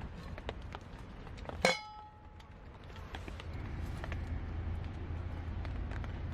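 Campfire crackling with scattered sharp pops over a low steady rumble, and a single sharp ringing metal clink about a second and a half in.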